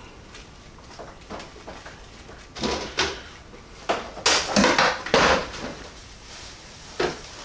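Handling noises from trimming a brisket with a knife on a plastic cutting board: a few short bursts of scraping and knocking, the loudest a little over four to five seconds in.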